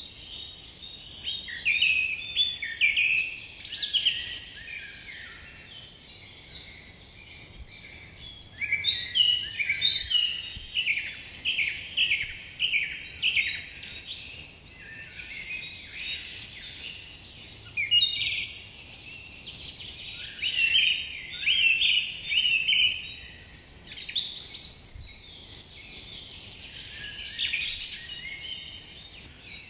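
Birds singing and chirping in repeated phrases of quick high notes, over a faint steady background hiss.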